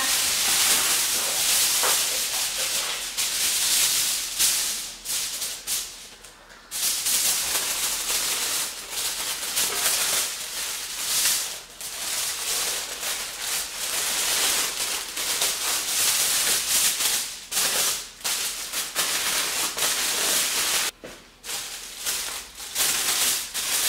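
Aluminium foil crinkling and rustling as a sheet is unrolled and pressed tightly around a wrapped roll, in irregular surges of loud crackling with two brief lulls.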